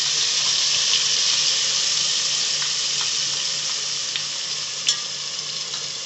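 Wet spice paste (dry masalas soaked in water) hissing and sizzling in hot oil in an aluminium pot, the water boiling off. The sizzle slowly dies down, with one sharp click about five seconds in.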